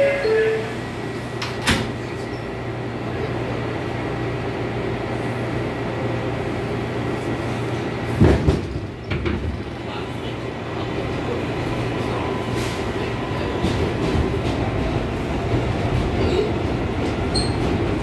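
Inside an R142A subway car: the last low note of the door chime, then the doors shutting with a knock just under two seconds in, followed by the car's steady hum and rumble with one loud clunk about eight seconds in.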